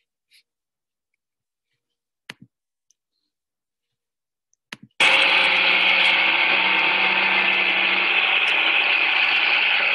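John Deere 160LC excavator running with an earth auger attachment, boring a hole for a geothermal earth loop: a loud steady machine noise with a low hum that starts suddenly about halfway through. Before it, near silence with a few faint clicks.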